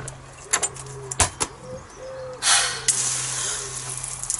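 A few sharp clicks of a gate latch and a pigeon cooing, then about two and a half seconds in a loud rush of spraying water starts suddenly and keeps hissing to the end, like rain beginning to fall.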